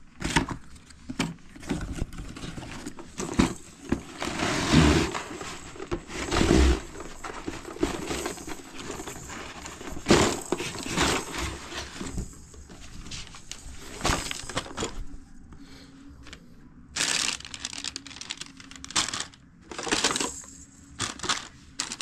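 A baby toy's box and wrapping being opened and handled: irregular crinkling and rustling, with sharp knocks here and there.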